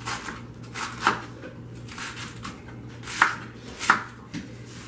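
Chef's knife chopping romaine lettuce on a cutting board: irregular crisp strokes of the blade through the leaves onto the board, with two louder strokes about three and four seconds in.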